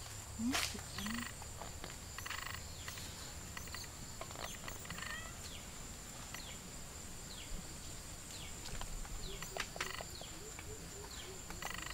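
Forest ambience: scattered short downward-sliding bird chirps over a steady high-pitched whine, with a few low calls in the background.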